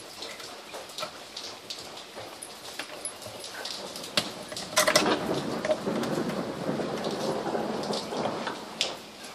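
Handling noise from a car radio unit being worked on at a bench: scattered clicks and taps of metal parts and tools, with a stretch of dense scraping and rattling from about halfway through.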